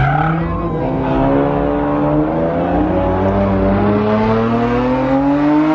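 Car engine held at high revs during a burnout, its pitch climbing slowly and steadily, with a hiss of spinning tyres underneath.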